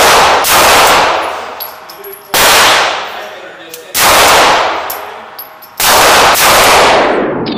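Glock 19 9mm pistol fired in single shots at an indoor range: five loud reports spaced one to two seconds apart, the last two in quicker succession. Each shot rings on in the range for over a second before dying away.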